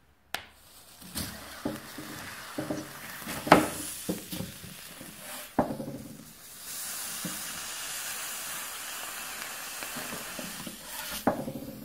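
Red-hot steel knife blade sizzling as it cuts through an orange, the juice boiling off into steam. Several sharp knocks of the blade in the first half, then a steady hiss from about two-thirds of the way in.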